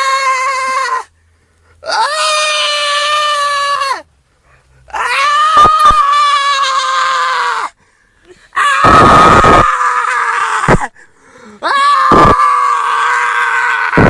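A person screaming and wailing in distress, about five long drawn-out cries with short breaks between them. The later cries are louder and harsher.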